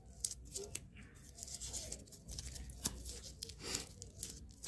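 A strip of sparkle sheet (glitter foam) being rolled round between the fingers into a flower: faint, irregular rustling and crinkling with small scratchy crackles.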